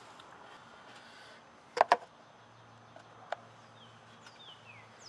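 Two sharp knocks in quick succession about two seconds in, with a lighter click a little later; near the end a bird gives short, repeated falling chirps over faint outdoor background noise.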